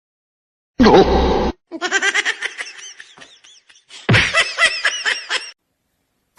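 A person laughing hard in quick repeated bursts, starting with a short loud cry that falls in pitch, then two long runs of high-pitched laughter.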